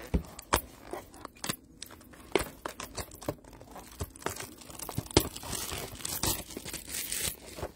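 Packaging of a 2013 Prominence football card box being torn and crinkled as it is opened, with irregular sharp clicks and rustles.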